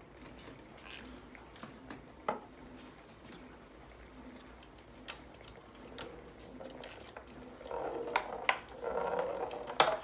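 Scattered clicks and taps of two green-cheeked conures' claws and beaks and a small ball on a wooden tabletop soccer board, building into louder scuffling about eight seconds in.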